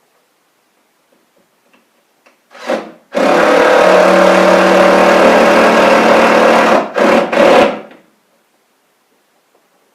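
Power drill driving a lag bolt with a washer into wood: a short blip of the trigger, a steady run of about three and a half seconds, then two short bursts to snug the bolt down.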